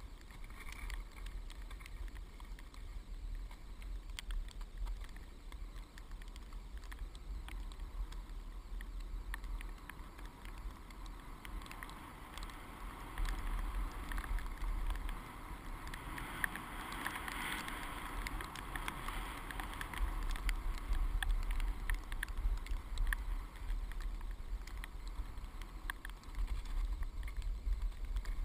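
Wind buffeting a helmet-mounted action camera as a skier glides through snow, with the hiss of skis sliding over the snow and scattered small clicks. The rushing grows louder partway through, then eases.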